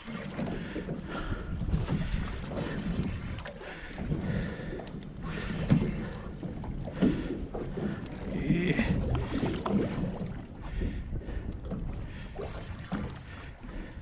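Wind buffeting the microphone and water moving against a small boat's hull, with a few short knocks.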